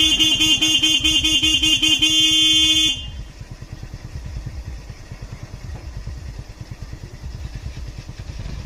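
A vehicle horn blares loudly and steadily for about three seconds, with a slight regular warble at first, then cuts off. Afterwards a small engine keeps running at idle with a low, rapid putter.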